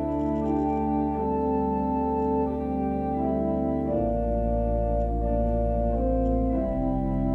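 Organ playing slow, sustained chords with a deep held bass note, the harmony changing every few seconds.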